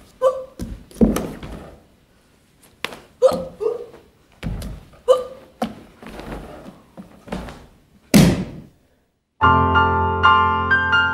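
A run of irregular thuds and knocks from a barefoot dancer's body and feet landing and falling on a stage floor. Piano music starts abruptly about nine seconds in.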